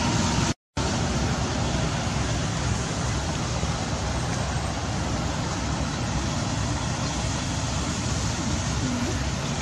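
A steady rushing background noise with no distinct calls, broken by a brief total dropout about half a second in.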